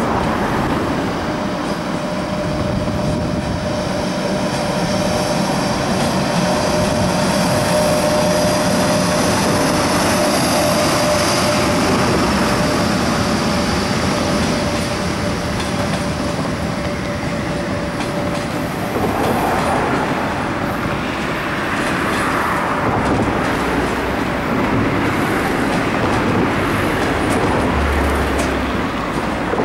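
Passenger train hauled by an EP1M electric locomotive rolling past slowly as it arrives, wheels clattering over the points. A steady wheel squeal runs through the first half.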